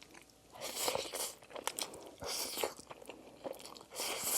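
Close-miked eating sounds: a series of irregular wet chewing and biting noises from a mouthful of Buldak tomato pasta noodles.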